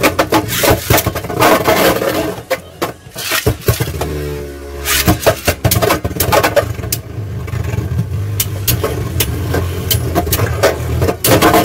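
Helios Volcano and Brave Valkyrie Beyblade Burst tops spinning on a plastic stadium floor, making a steady whirring drone. Sharp clacks come throughout as the tops knock into each other and the stadium wall, with a dense flurry of hits near the end.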